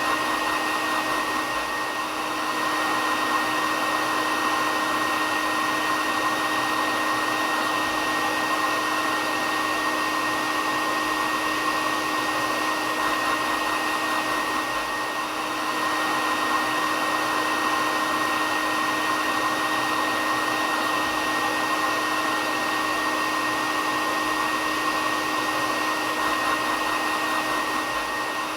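Hair dryer running steadily: a loud, even whir with a steady high whine above a lower hum. The level dips slightly twice.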